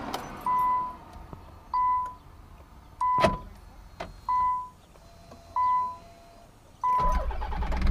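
Nissan 300ZX's dashboard warning chime beeping six times, about once a second, with a sharp click in between. Near the end the starter cranks the naturally aspirated 3.0 V6 and it begins to catch.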